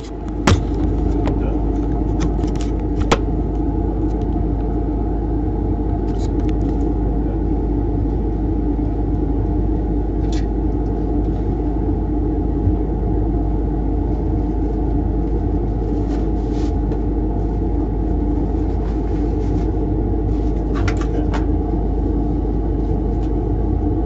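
A machine running with a steady, unchanging low drone, like a fan or pump motor, with a few faint ticks on top.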